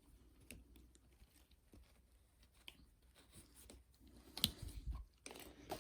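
Faint small clicks and scrapes of a small screwdriver prying up the metal stop clip on the end of a zipper, with a louder cluster of clicks about four and a half seconds in.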